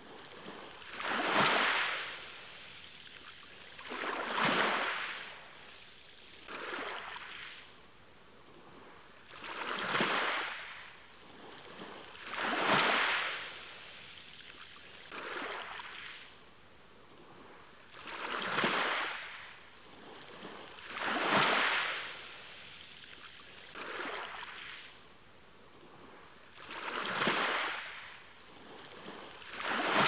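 Small ocean waves breaking and washing up on the shore in a steady rhythm, one surge about every three seconds, with a softer hiss of water between them.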